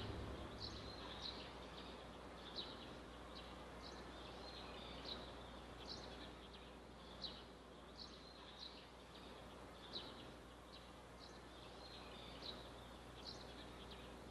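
Faint bird chirping: short high chirps about once a second, over a low steady hum, as the tail of music dies away at the start.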